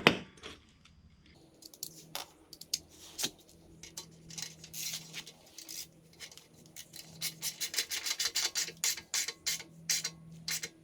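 Hand tools and metal parts being handled: light clicking and scraping, with a sharp knock at the very start and a fast irregular run of clicks through the second half.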